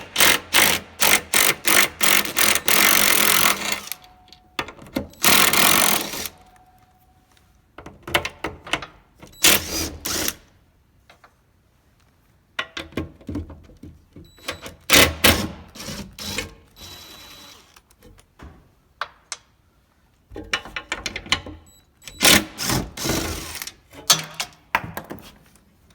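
Cordless impact driver hammering in several bursts of a second or more each, backing out the bolts that hold the spare tire carrier to the tailgate.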